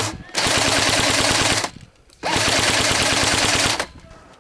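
JG G3 airsoft electric rifle firing full-auto: the tail of one burst, then two long bursts of about a second and a half each, a rapid even rattle of shots. The firing stops about four seconds in.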